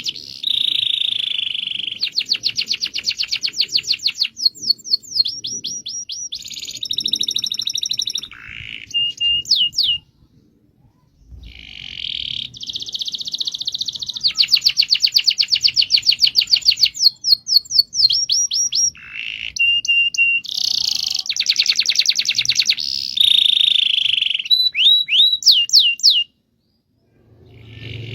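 Domestic canary singing a long rolling song: rapid trills and rolls in quick succession, breaking off for about a second twice.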